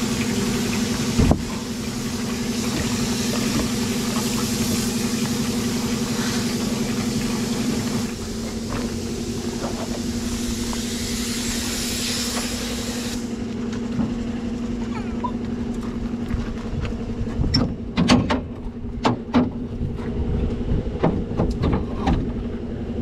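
Shaktiman (licence-built MAN 415) military truck's diesel engine idling steadily soon after a cold start, after years of standing. A hiss runs over it and stops about halfway. Several sharp knocks come near the end.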